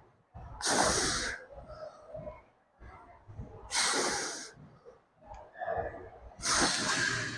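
A man breathing heavily from the effort of heavy barbell squats: three forceful, hissing exhalations, each about a second long and roughly three seconds apart, with softer breaths between.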